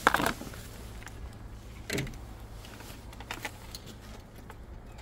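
Plastic food bowl set down on a concrete floor with a sharp knock, then a small dog eating from it: a second knock of the bowl about two seconds in and a few light clicks and clinks.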